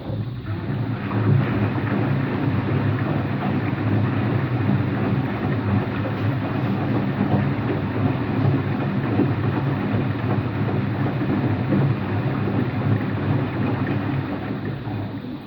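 Empty washing machine spinning, with a steady low rumble from worn bearings that grows louder about a second in and eases near the end. The owner suspects both the drum bearings and the motor bearings.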